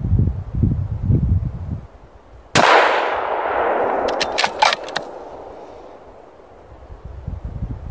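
A single rifle shot about two and a half seconds in, its report echoing and dying away over a few seconds, followed by a quick run of sharp clicks. Wind rumbles on the microphone before and after the shot.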